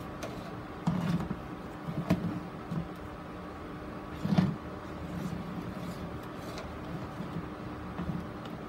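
Handling noise from a plastic grid mounting board and moss root ball being turned and shifted on a plastic box: several soft knocks and rustles, the loudest a little past the middle, over a steady faint hum.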